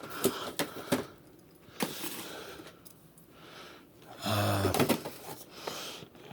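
Boxed action figures being handled: cardboard and plastic packaging knocking and scraping in a series of short clicks and rubs, with a brief low hum from a voice a little past four seconds in.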